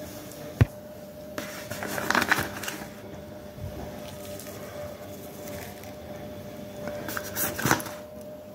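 Spoon scooping and scraping ground spice out of a plastic tub, in two stretches, early and near the end, with a single sharp click about half a second in. A faint steady tone runs underneath.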